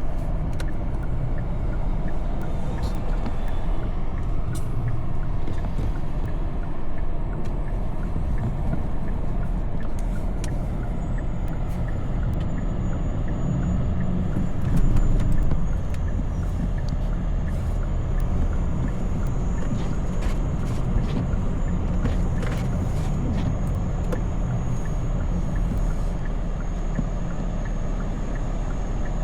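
Steady low rumble of a road vehicle running, with scattered light clicks and a faint thin high whine that comes in about a third of the way through.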